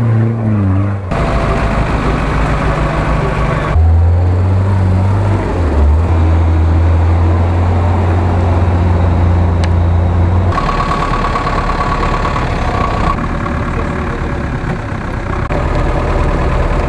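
Off-road 4x4 engines running in mud, in a series of short clips that cut abruptly every few seconds. One stretch in the middle holds a steady low engine drone.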